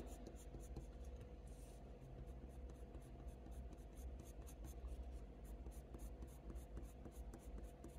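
Colour pencil (Faber-Castell Polychromos) scratching across hot-press watercolour paper in quick, short flicking strokes, several a second, faint.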